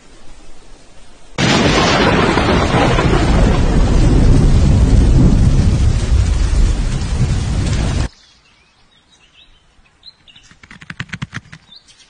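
A loud, steady rushing noise with a deep rumble underneath starts suddenly and cuts off just as suddenly after about seven seconds. Faint short chirps and a quick run of crackling ticks follow near the end.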